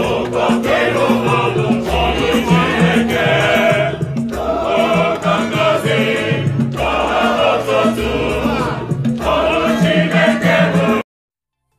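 A choir singing over an accompaniment with a low, repeating bass line; it cuts off suddenly near the end.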